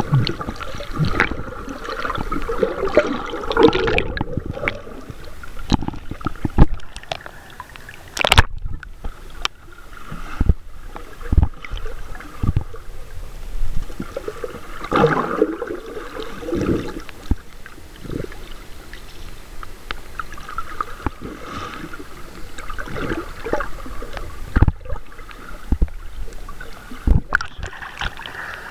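Muffled underwater sound as picked up by a submerged camera: water swishing and gurgling around it, with scattered knocks and bumps against the camera. A louder swirl of water about halfway through.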